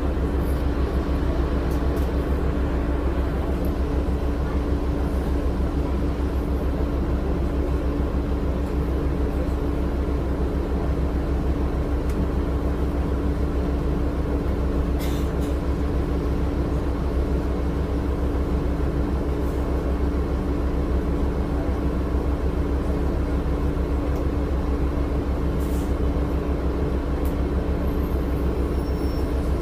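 Cummins ISL9 inline-six diesel of an Orion VII city bus running steadily, heard from inside the cabin as a constant low rumble with a steady hum. Two faint clicks, about halfway through and near the end.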